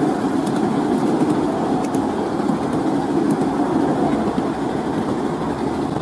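Steady running noise of a 7¼ in gauge miniature train moving along its track, heard from on board, with a few faint clicks.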